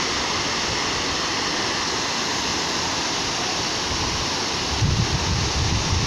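Waterfall rushing down rock slabs into a pool, a steady even rush of water. Near the end, wind buffets the microphone with low rumbles.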